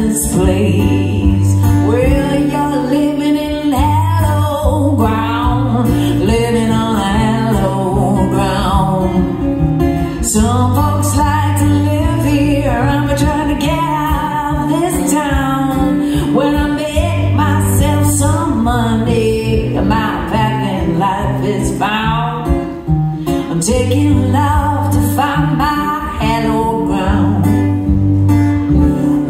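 A woman singing a song and strumming her acoustic guitar, a solo performance on voice and guitar.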